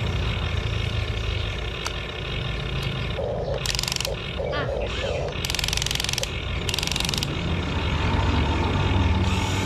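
Remote-control toy excavator's small electric motors and gears whirring steadily as its arm lowers and the bucket works into sand. Three short hissing bursts come in the middle.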